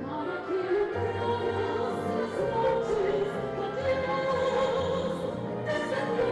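Classical music: an orchestra plays while an operatic voice sings long notes with vibrato.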